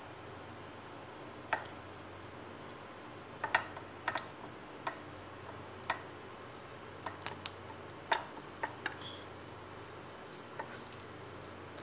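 A hand rubbing wet spice paste into a whole raw fish on a ceramic plate: irregular small clicks and taps as the fish and fingers knock against the plate, over a steady hiss.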